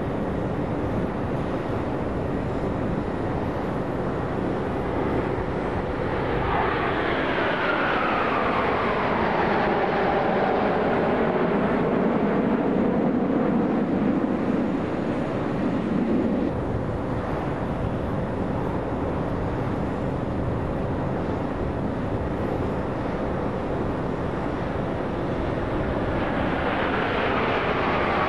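Jet noise from a formation of BAE Hawk jet trainers flying past. About six seconds in, the sound swells with a whine falling in pitch as the jets pass. Near the end, another falling whine builds.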